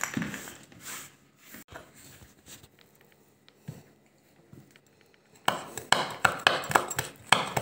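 Kitchen knife chopping a hot pepper on a wooden cutting board: quick, even knife strikes on the board, about four or five a second, starting about two-thirds of the way in. Before that there are only faint handling sounds and a single sharp click.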